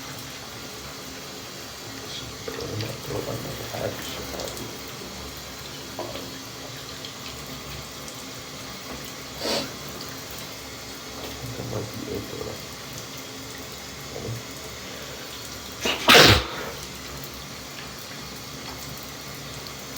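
A man's single loud, explosive sneeze about four seconds before the end, with a few small breath sounds leading up to it, over the steady hiss of a running shower.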